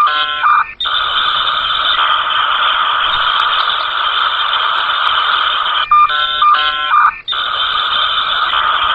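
An alarm ringing steadily, broken twice by about a second of short pitched tones that stop abruptly.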